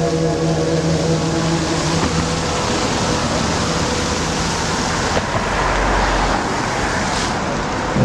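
Show music with held notes fades out about two seconds in, leaving a loud, steady rushing hiss of water jets spraying from the show's fountains.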